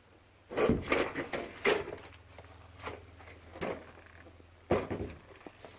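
A few sharp knocks and clunks of things being handled, bunched about half a second in and again near the end, with a faint low hum between them.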